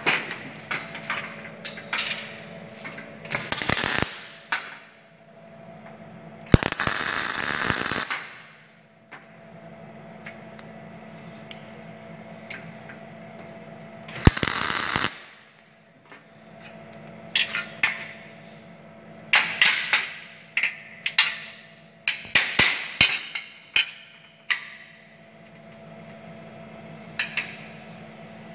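Stick arc welding: two short crackling bursts of the arc as spacer bars are tack-welded to a steel door frame, the first about a second and a half long, the second shorter. They are followed by a run of sharp metal clicks and knocks, over a steady low hum.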